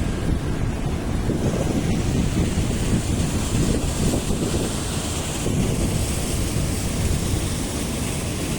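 Woodchip discharging machinery running with a steady, noisy rumble as the chips are unloaded.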